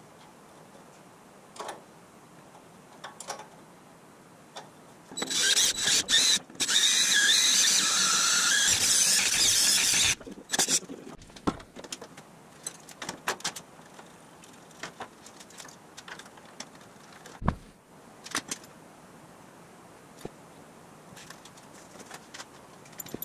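Loud, high-pitched metal-on-metal squeal lasting about five seconds, with a brief break near its start, then scattered light clinks and taps of metal parts being handled.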